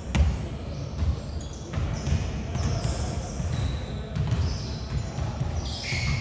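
Basketballs bouncing on a hardwood gym floor in repeated thumps, with a loud thump just after the start, and sneakers squeaking in short high-pitched chirps, all echoing in a large hall.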